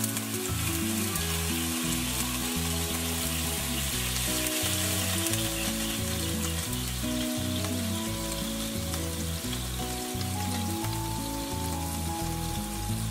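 Quail eggs frying in olive oil with a splash of water in a nonstick pan, sizzling steadily on low heat; the water keeps them from sticking while the whites set. Background music with a slow stepping melody plays along.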